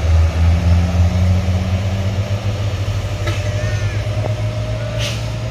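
Heavy truck's diesel engine running with a low, pulsing throb that eases off a little after about two seconds. Two short high chirps come about halfway through.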